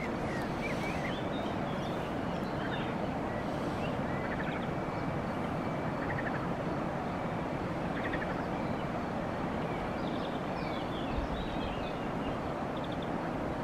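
Riverbank ambience: a steady low rush, with small birds chirping in short trills and twitters again and again.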